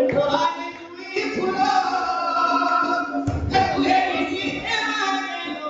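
A man singing an Odia Danda folk song into a microphone, with long held, sliding notes, accompanied by a hand-played two-headed barrel drum whose deep strokes come in about halfway through.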